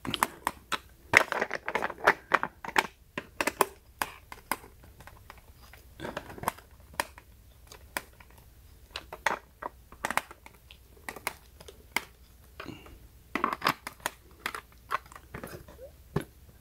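Irregular plastic clicks and short scrapes from a screwdriver turning the screw in a solar light's plastic swivel-joint bracket, with the bracket handled and pivoted between turns.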